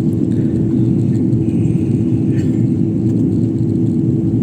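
Steady low roar of an airliner in flight, heard inside the passenger cabin, with a constant hum running through it.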